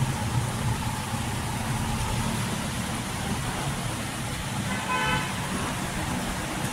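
Steady low background rumble, with one short horn toot about five seconds in.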